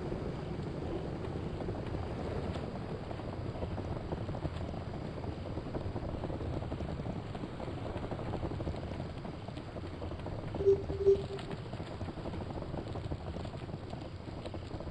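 Steady rushing wind noise on the microphone, with two short electronic beeps in quick succession about eleven seconds in.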